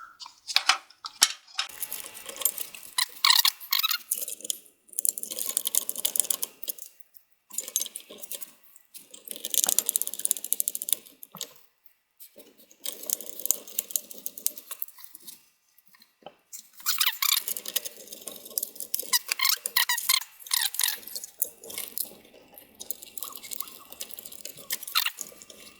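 Metal clinking, scraping and rattling in repeated bouts, each a second or two long, as a CPU fan is handled and fitted back onto its heatsink inside a desktop PC case.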